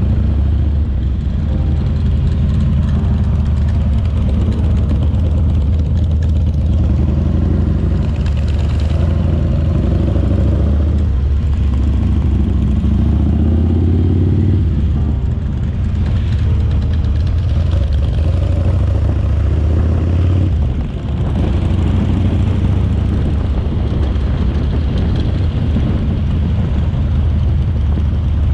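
Harley-Davidson V-twin motorcycle engine running steadily under way, with a brief drop in level about 21 seconds in, as when the throttle is closed or a gear is shifted.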